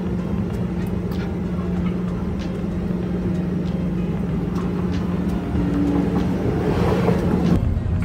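Steady low mechanical hum with a constant low tone, like a motor or engine running, swelling into a louder hiss near the end and then dropping off suddenly.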